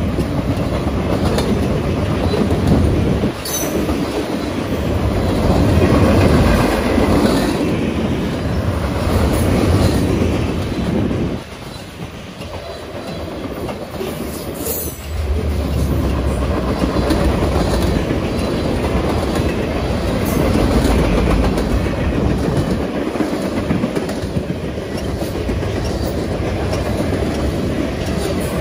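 Freight train cars rolling past close by: a steady heavy rumble of steel wheels on the rails, easing off for a few seconds near the middle. A few brief high-pitched sounds cut through the rumble.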